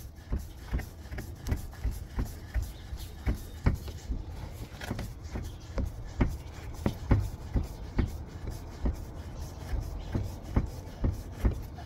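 Plastic oil filter housing cap being unscrewed by hand from under the car, giving a run of short, irregular clicks and creaks, about two to three a second, over a low steady rumble.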